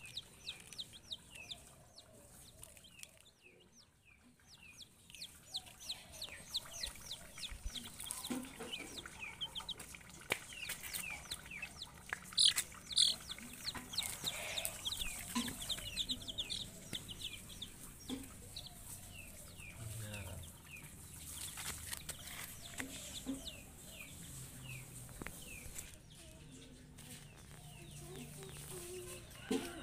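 Two-week-old broiler chicks peeping: many short, high, falling chirps, repeated and overlapping throughout, a few louder ones about halfway through.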